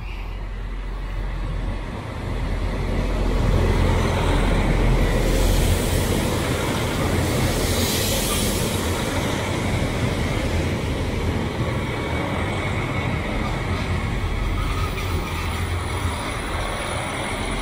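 JR Hokkaido KiHa 261 series diesel limited express train coming in alongside the platform: a steady low diesel hum with the rumble of wheels on the rails, loudest as the front cars pass about four to eight seconds in.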